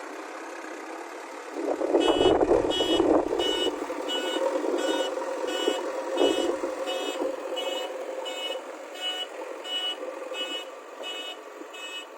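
Vehicle reversing alarm beeping steadily, about one and a half beeps a second, over the hum of a running diesel engine. A loud rumbling burst comes just as the beeping starts, about two seconds in, and a shorter one follows a few seconds later.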